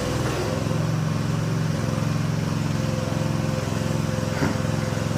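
Allis-Chalmers tractor engine idling steadily.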